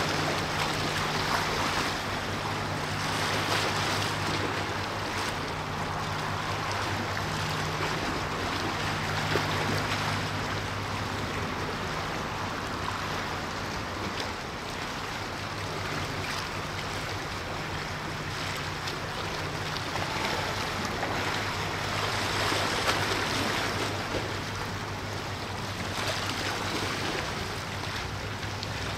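Sea water rushing and lapping, with a steady low hum of a ship's engines underneath.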